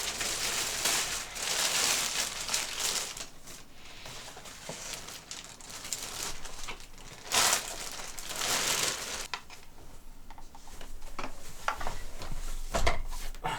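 Plastic packaging crinkling and rustling in bouts as chair parts are unwrapped, with a few light knocks and clicks near the end.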